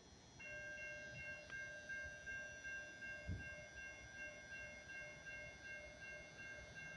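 Railroad grade-crossing warning bell starts about half a second in and keeps ringing in quick, even pulses, faint: the crossing signal activated by the approaching train. A single low thump sounds about three seconds in.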